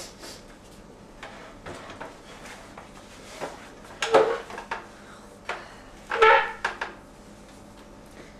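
Dishes and a kitchen knife being handled on a wooden table: scattered knocks and clinks, with two louder clatters about four and six seconds in.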